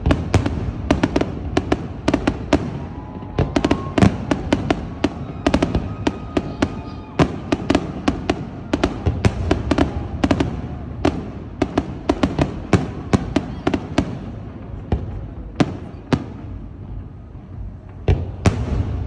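Fireworks display: a dense, rapid string of bangs and crackling bursts, several a second, over a continuous rumble. It thins out for a few seconds near the end, then picks up again.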